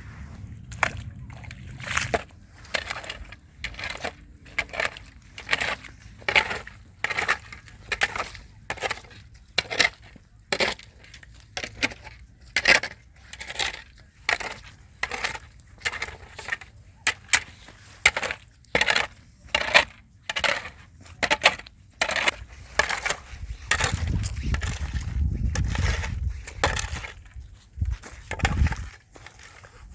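Snow crunching rhythmically, about two sharp strokes a second, with a low rumble near the end.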